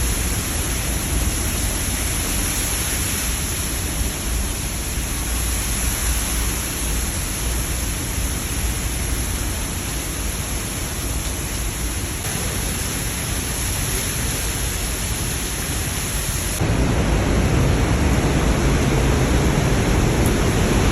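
Steady rushing roar of Niagara Falls' falling water. About 17 seconds in it cuts abruptly to a louder, deeper stretch of the same rush.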